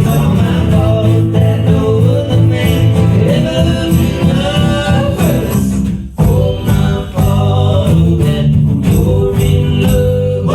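Live country band playing the song's closing instrumental bars, with guitars and drums. The band drops out briefly about six seconds in, comes back in, and stops on a final hit near the end.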